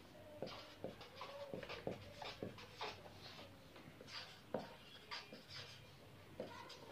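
Dry-erase marker writing on a whiteboard: faint short squeaks and scratches, one for each pen stroke.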